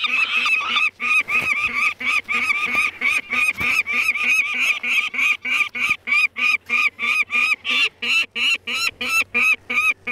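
Nestling peregrine falcon calling over and over in short, harsh cries, about three or four a second, as it is held for leg banding: the young bird's noisy protest at being handled.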